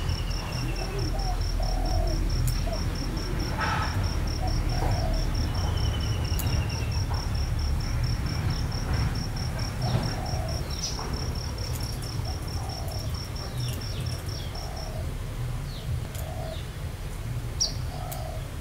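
Outdoor ambience: an insect's steady, evenly pulsed high trill that stops about three-quarters of the way through, with short, low bird calls scattered throughout over a steady low rumble.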